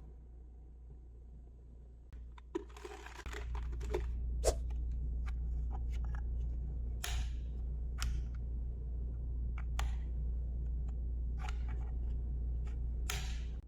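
Handling sounds of a keyboard and its packaging: a brief rustle and scattered clicks and knocks. Under them runs a low steady hum that comes up suddenly about three seconds in.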